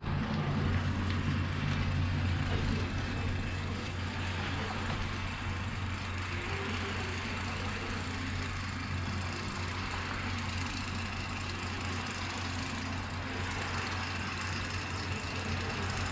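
A steady low mechanical hum with a faint hiss over it, unchanging throughout.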